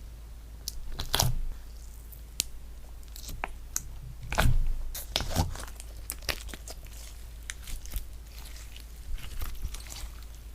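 Slime being squeezed and poked by hand: irregular sharp clicks and pops, with louder squishes about a second in and around the middle.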